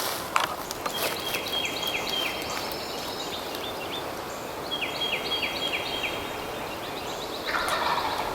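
Wind through the woods with a songbird singing two similar phrases of quick repeated notes; near the end a brief, louder, lower rough call cuts in.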